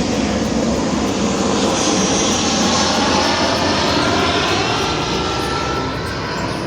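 Airplane flying past, a loud rushing engine noise with faint falling tones that swells in the middle and eases off near the end.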